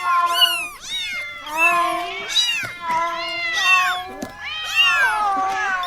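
Cat meowing over and over, one rising-and-falling meow after another with hardly a break.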